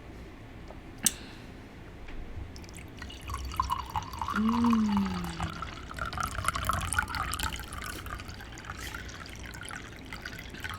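Stella Rosa red wine being poured into a glass, a steady pour lasting several seconds. There is a single sharp click about a second in.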